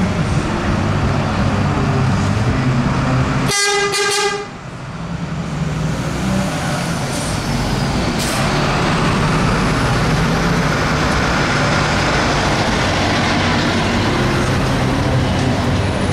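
Diesel engines of historic buses running at the stand, with one short horn toot about three and a half seconds in; later a bus drives past.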